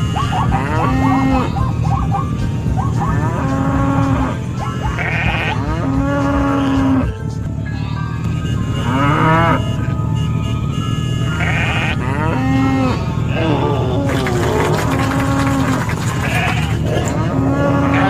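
Sound-effect track of farm animal calls, bleats and moos, repeating every second or two over a steady low hum.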